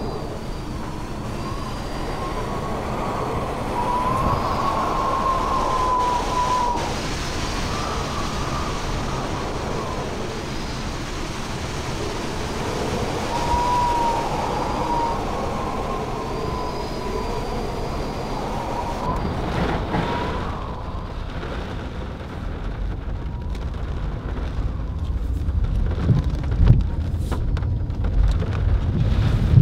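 Hurricane-force wind howling, with a thin whistle that wavers irregularly up and down in pitch. About twenty seconds in, the whistle gives way to gusty low rumbling of wind buffeting the microphone, with rain.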